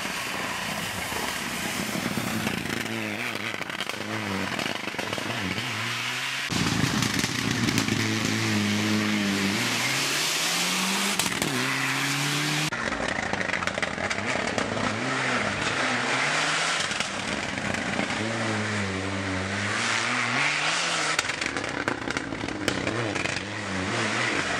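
Mitsubishi Lancer Evo IX Group N rally car's turbocharged four-cylinder engine driven hard, its pitch climbing and falling again and again through gear changes and lifts. The sound jumps abruptly about six and a half and about thirteen seconds in.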